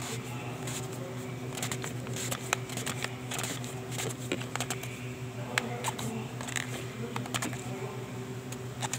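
Irregular small clicks and rattles of hard plastic as a Toyota 1GD/2GD fuel filter canister is handled and twisted into its housing head, over a steady low hum.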